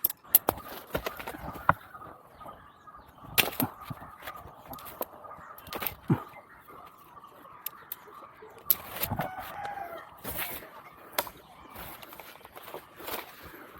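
Irregular sharp clicks, knocks and scrapes from a tree climber's spikes and gear against a teak trunk, with a rooster crowing in the background.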